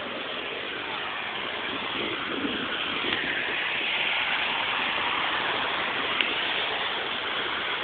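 Steady rush of multi-lane highway traffic heard from an overpass, growing louder about three seconds in, with a single brief click about six seconds in.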